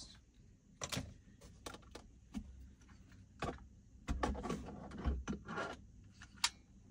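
Plastic clicks, taps and rattles of a clip-on rear-view-mirror phone holder being handled and worked loose from its bracket at a car's mirror: a scattering of short knocks, busiest around four to five seconds in, with a sharp click near the end.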